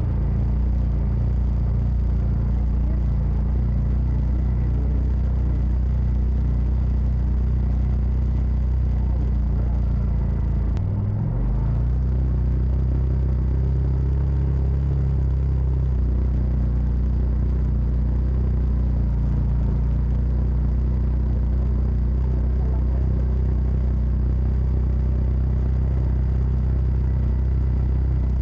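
Side-by-side UTV engine running steadily under way on a trail, a low rumble. About eleven seconds in the note briefly dips and then shifts pitch for a few seconds.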